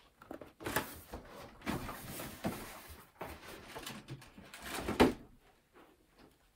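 Cardboard sneaker box being opened and handled: irregular rustling and scraping of the lid and contents, with a sharp knock about five seconds in.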